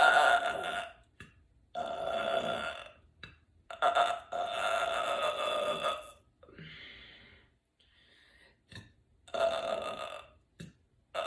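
A woman burping loudly again and again, about five long pitched burps one after another with short pauses between, one of them drawn out to about two seconds. The burps are gas brought up from drinking carbonated sparkling water.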